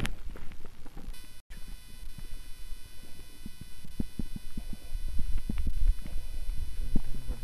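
Footsteps walking on a dirt path, irregular soft thumps over a low rumble on the microphone. About a second and a half in the sound drops out briefly, and after that a faint steady high electronic whine runs underneath.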